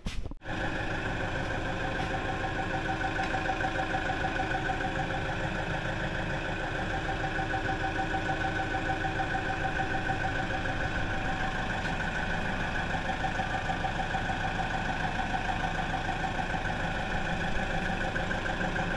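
Forklift engine running at a steady idle, its pitch and loudness unchanging.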